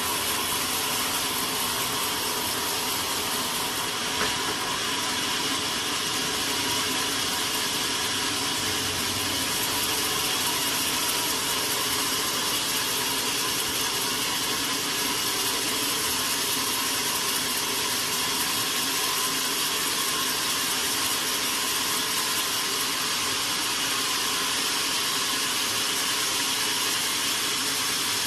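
Sawmill saw running, a steady, unbroken machine noise with a high hiss and several held tones.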